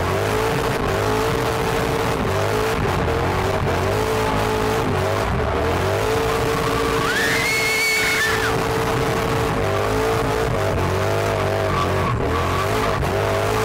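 Drift car engine revving up and down through a drift, with the tyres squealing in a high, steady tone for about two seconds midway.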